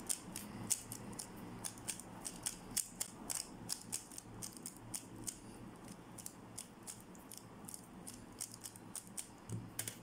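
A MoYu RS3M2020 3x3 speed cube being turned by hand to scramble it: a quick, uneven run of light plastic clicks, several a second. A slightly louder knock comes near the end.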